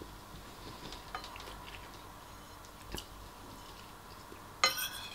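Quiet eating sounds: a metal spoon clicking a few times against a ceramic bowl, with a louder, brief scrape of the spoon in the bowl near the end, and soft chewing of rice and meatballs.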